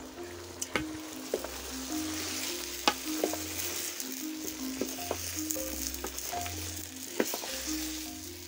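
Chopped green bananas (matoke) sizzling as they fry in a metal pot over a wood fire, stirred with a wooden spoon that knocks against the pot wall again and again. Soft background music plays underneath.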